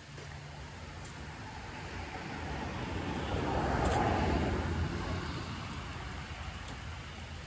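An SUV driving past on the road, its noise swelling to a peak about four seconds in and then fading away.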